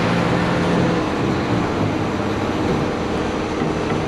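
Diesel tool truck driving along, its engine a steady low drone under road noise.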